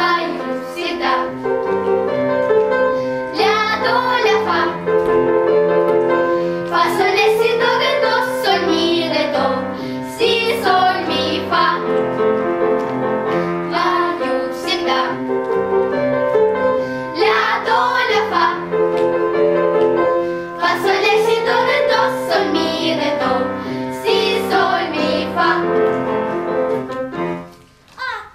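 A children's song: children's voices singing together over a steady instrumental accompaniment, stopping near the end.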